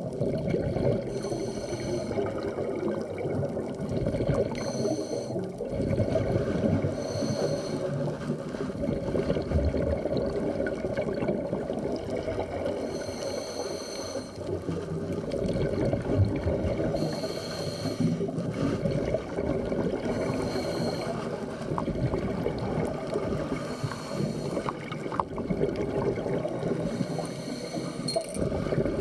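Muffled underwater noise heard through a phone in a dive housing, with a scuba regulator's breathing hiss and bubbles recurring every few seconds.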